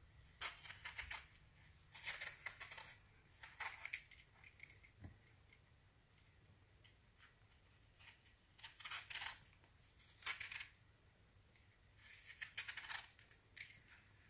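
Cutting by hand, heard as about six short, crisp bursts of a second or less, spaced out with pauses between them.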